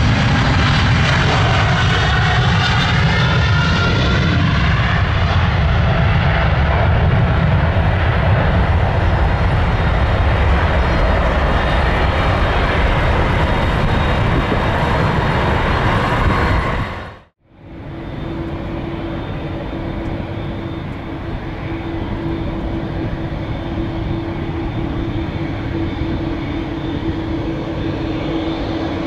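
Boeing 777-300ER's GE90 turbofans at take-off thrust: a deep, loud rumble as the jet rolls and climbs away, with whining tones sliding in pitch over the first few seconds. The sound fades out suddenly about 17 seconds in. A different, steadier jet engine hum with a constant drone tone follows from an airliner close by.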